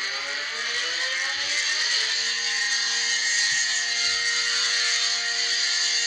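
ACA Cyclone tornado siren winding up, its pitch rising over about the first two seconds, then holding a steady tone with a hiss of rushing air above it.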